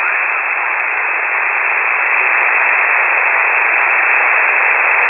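Steady hiss of band noise from a shortwave receiver, cut off sharply above and below like a narrow single-sideband voice channel, with no one talking on the frequency.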